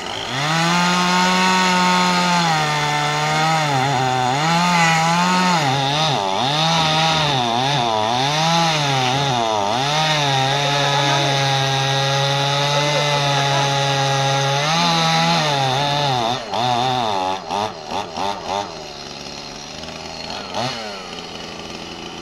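Two-stroke chainsaw cutting into a dead tree, running at high revs with the engine speed rising and falling as the chain bites. After about sixteen seconds it drops back in a few quick blips and settles to a lower idle.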